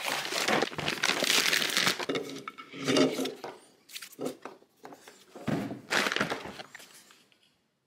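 Plastic bag around a guitar effects pedal crinkling and rustling as the pedal is handled and unwrapped. It rustles steadily at first, then comes in shorter bursts that die away near the end.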